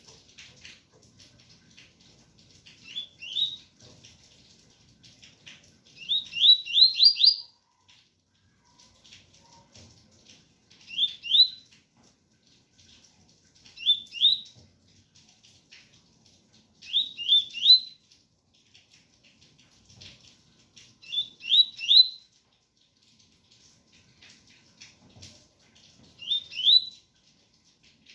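A double-collared seedeater (coleiro) sings the 'ganga 001 entre tui tui' song type: short phrases of two to five quick rising notes, repeated about every three to four seconds. Faint rain patters underneath.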